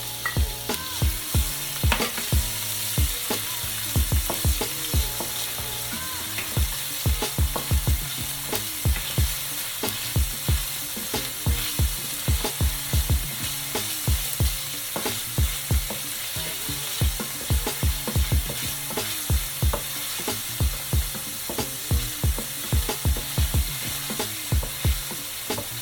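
Chopped onion and garlic sizzling in hot oil in a pot, a steady hiss with repeated low knocks of a utensil stirring, about two a second.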